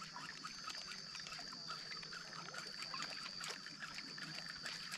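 Quiet outdoor waterside ambience: a steady high-pitched buzz with scattered faint chirps and light trickling water.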